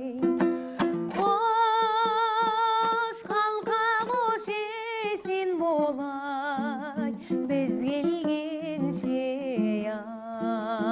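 A woman singing a traditional Kazakh song of the Zhetysu style in long, held notes with a wide vibrato, over a plucked string accompaniment.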